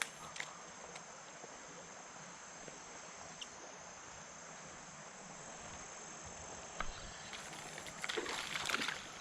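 Steady high-pitched chirring of insects over the quiet outdoor background of a creek bank. A few faint clicks, then a couple of seconds of crunching and scuffing near the end.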